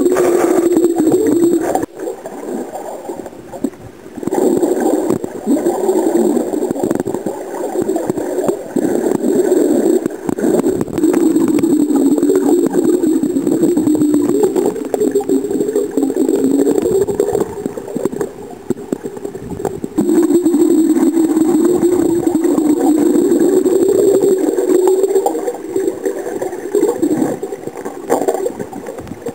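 Underwater noise picked up by a submerged camera: a loud, wavering drone with gurgling water, dropping back briefly about two seconds in and again around eighteen seconds.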